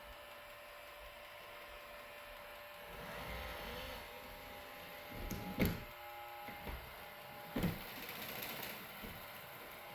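iRobot Roomba robot vacuum driving about on its search for the home base, its wheel motors running with a faint steady whir. Two short thumps come about five and a half and seven and a half seconds in.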